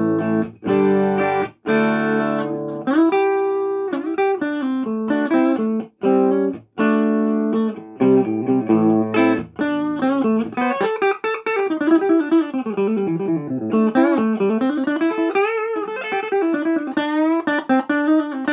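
Electric guitar, a Jackson Fusion Pro, played through an Orange Crush 35RT combo amp. For about the first half it plays chords that are struck and cut off short. Then it moves to a single-note lead line with notes sliding and wavering in pitch.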